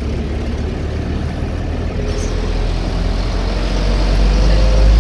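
Vehicle engine and road noise heard from inside the cabin while driving: a steady low drone that grows louder over the last couple of seconds.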